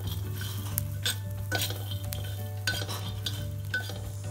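A metal spatula scraping and stirring peanuts across a dry iron tawa as they roast, in repeated short strokes with the nuts rattling over the pan, above a steady low hum.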